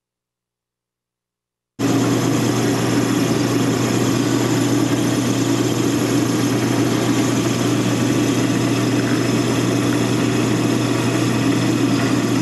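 Metal lathe running steadily, a constant machine hum with a strong low steady tone. It starts abruptly about two seconds in.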